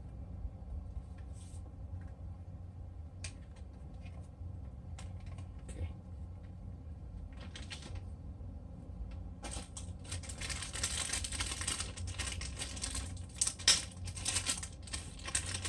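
Light clicks and taps of a plastic charger and its cord being handled, then, about two-thirds of the way in, a clear plastic bag crinkling and rustling loudly as hands dig a power cord out of it.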